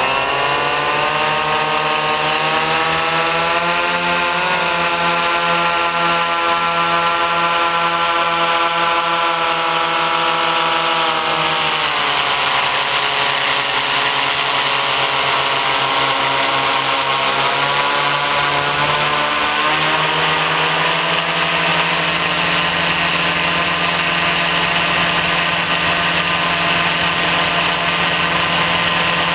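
Motor-driven ducted propellers of a remote-control blimp whining close up over a steady rush of air. The pitch climbs over the first few seconds, holds, drops about twelve seconds in, and rises again around twenty seconds as the throttle changes.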